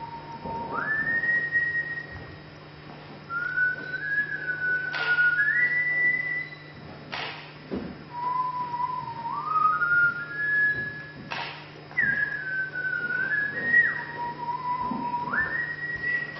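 A person whistling a slow tune: long held notes that slide up and down between them. A steady low hum runs underneath, and three sharp knocks are spread through it.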